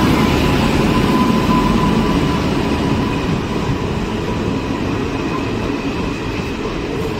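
Passenger train running, a loud steady rumble of the wheels and carriages on the track.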